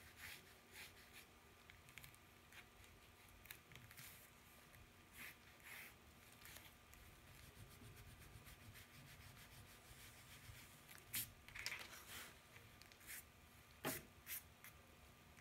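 Faint scratching of a pencil drawing light strokes on paper, with a few louder sharp scratches or taps near the end.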